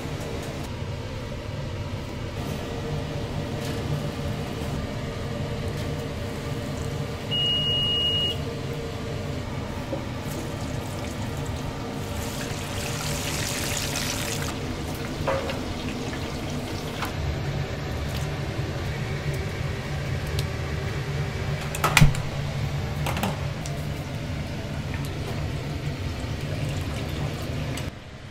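Busy snack-shop kitchen: a steady hum of kitchen equipment, one beep about seven seconds in, a brief hissing rush around the middle, and a few clicks, with a sharp clack about 22 seconds in the loudest moment.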